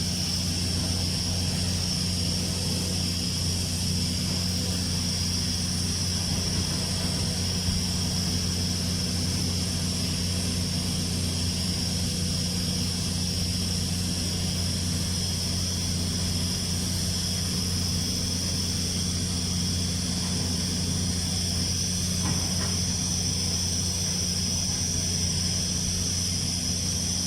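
TIG welding arc burning steadily on a steel pipe joint: an even high hiss over a constant low electrical hum.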